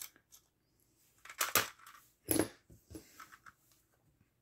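Handling sounds as a small screwdriver takes the screw out of a plastic infrared thermometer's battery cover and the tool is put down: faint clicks, with two sharper clacks about a second and a half and two and a half seconds in.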